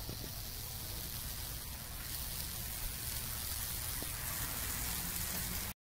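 High-voltage fractal (Lichtenberg) burning on a wooden broom handle: a steady sizzling hiss and crackle with a low hum underneath as the charge burns branching channels into the wood. It cuts off abruptly shortly before the end.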